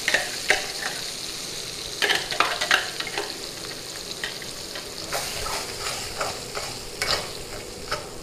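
Blended spice paste frying in hot oil in a metal wok: a steady sizzle, with a spatula scraping and stirring the pan in irregular strokes, louder in clusters about two, five and seven seconds in.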